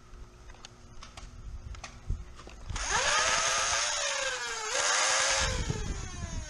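A motorised flywheel Nerf blaster firing a long full-auto burst to empty its magazine, the motor whine falling in pitch as the flywheels bog under the feeding darts. The whine jumps back up about two seconds later and falls again as firing goes on.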